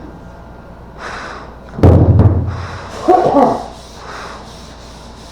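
A single heavy thump about two seconds in, with a low boom hanging after it. A short vocal sound follows about a second later. Faint brief rubbing or breathing noises come before and after.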